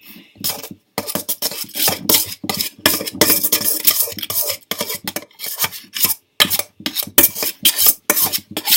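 A utensil stirring a thick slime mixture of glue and shaving cream in a bowl, scraping and clinking against the bowl in quick repeated strokes, a few each second.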